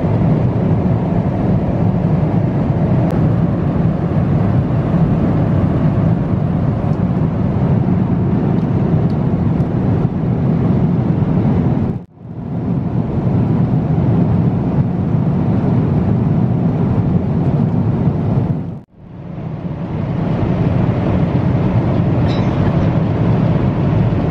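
Steady roar inside a Boeing 777's cabin in cruise, the drone of engines and rushing airflow, heaviest in the low end. It drops out briefly twice, about halfway through and again about three-quarters through.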